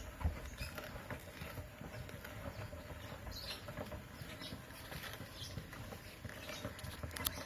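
Flock of broiler chickens, faint: scattered short calls mixed with many small taps and scratches.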